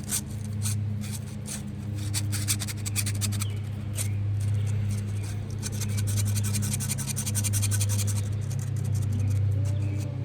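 Rapid clicking and scraping of a plastic fidget toy being handled and twirled, mostly from about two seconds in until near the end. Under it runs the steady low hum of a blender in the house.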